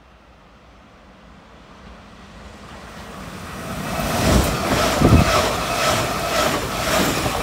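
Alstom Coradia Continental electric multiple unit pulling into the platform. Its running noise grows from faint to loud as it draws alongside about four seconds in, with a steady whine and a regular clatter about every two-thirds of a second. Wind buffets the microphone.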